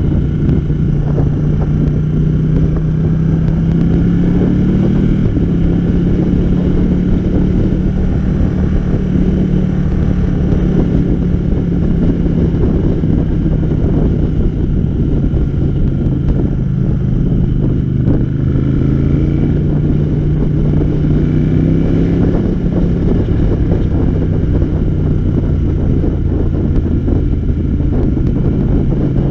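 Ducati Panigale motorcycle engine running at a steady cruise, with heavy wind rush on the microphone. The engine note rises about five seconds in and again around twenty seconds in, sinking slowly in between.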